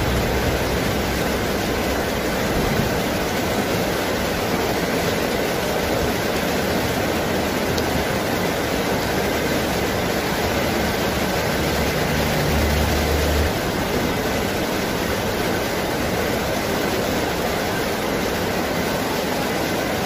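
Heavy rain falling steadily, an even hiss, with a brief low rumble about twelve seconds in.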